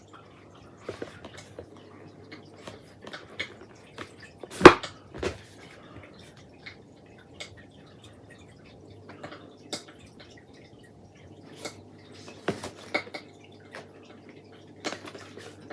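Scattered light clicks and knocks, with one sharper, louder knock about four and a half seconds in, over a faint steady low hum.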